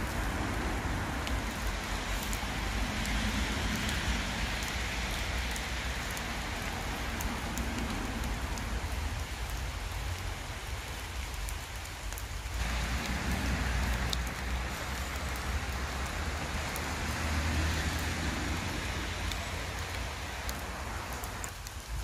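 Steady rain falling in woodland, with a low rumble underneath.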